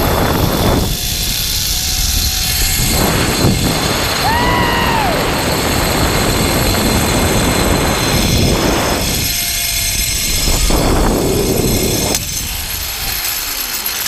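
Zip-line trolley running fast along a steel cable, with a loud steady rush of wind on the microphone. It slows and quietens about twelve seconds in as the rider comes in to the landing platform.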